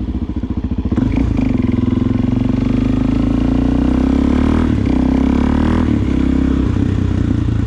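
Suzuki DR-Z400SM's single-cylinder four-stroke engine running through a Delkevic aftermarket exhaust. It gets louder about a second in as the throttle opens, then holds a fairly steady note while riding.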